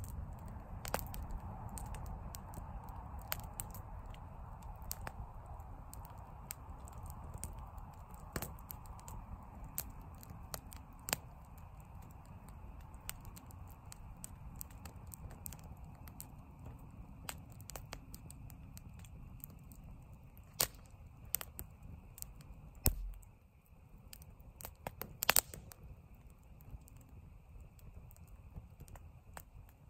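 Campfire of burning wood crackling, with irregular sharp pops over a low steady rumble; a quick cluster of louder pops comes about 25 seconds in.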